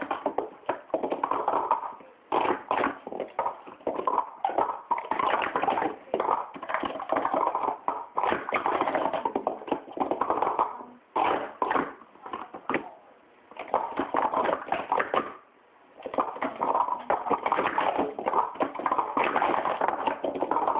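Purple plastic sport-stacking cups clattering as they are rapidly upstacked and downstacked on a stack mat. The runs are fast, dense volleys of light plastic clacks, broken by a few short pauses between sequences.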